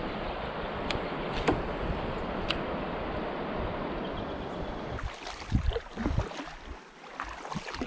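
A steady rushing noise with a few light clicks, which drops away suddenly about five seconds in. After that a kayak paddle dips and splashes in the water, with a couple of low thumps against the hull.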